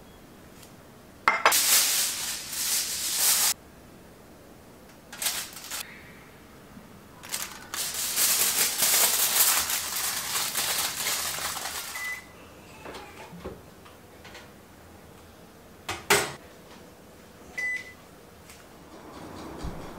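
Aluminium foil crinkling and scrunching in several bursts, the longest for about four seconds, as it is pressed around food in a glass dish. Then comes a knock, and a built-in electric oven's touch panel gives short high beeps. A low steady hum sets in near the end.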